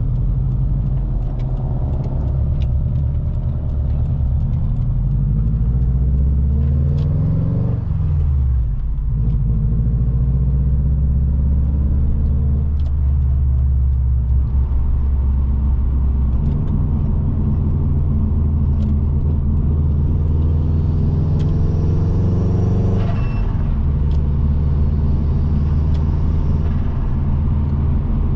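Subaru Impreza WRX's turbocharged EJ20 boxer four-cylinder engine accelerating through the gears. Its note climbs in pitch, drops sharply at a gear change about eight seconds in, builds again, and drops at a second shift near the end.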